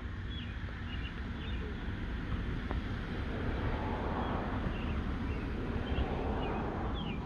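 Outdoor ambience: a steady low rumble with faint, scattered small-bird chirps.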